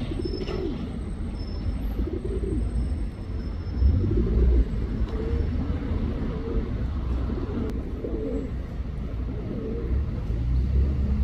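Male pigeon cooing to a female, repeated wavering low coos. A low traffic rumble runs underneath and swells briefly about four seconds in and again near the end.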